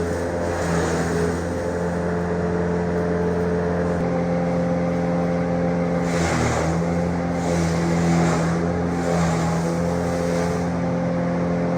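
An engine running steadily at an even speed, with a brief surge of rougher noise about six seconds in.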